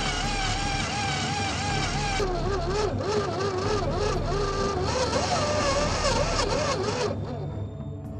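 Electric motor and gearbox of an RC4WD Black Rock scale crawler whining under throttle as it crawls through rough ground, the pitch wavering constantly with throttle and load. The pitch drops a couple of seconds in, climbs again around five seconds, and the whine cuts off about seven seconds in, with a scatter of faint clicks along the way.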